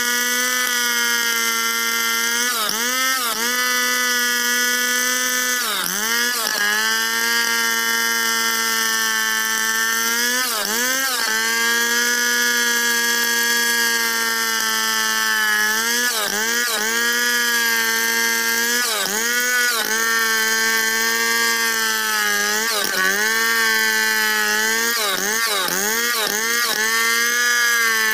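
Stihl 070 two-stroke chainsaw running at full throttle as it rips a log lengthwise along the grain. Its pitch drops briefly and recovers every few seconds as the engine bogs under the load of the cut.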